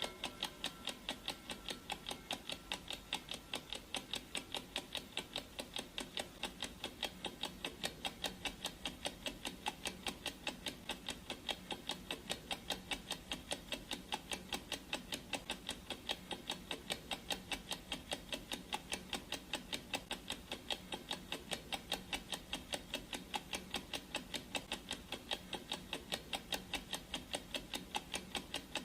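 Clock ticking sound effect of a countdown timer, a steady run of even, regularly spaced ticks.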